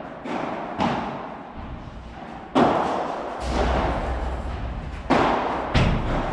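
Padel rally: about six sharp, echoing hits as the ball strikes rackets, the court and the glass walls.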